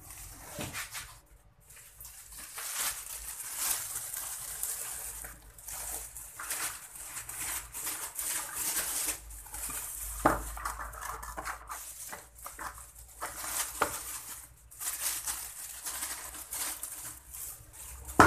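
Plastic bag rustling and crinkling as crumbly groundbait is poured into it from a plastic basin, with a louder knock about ten seconds in.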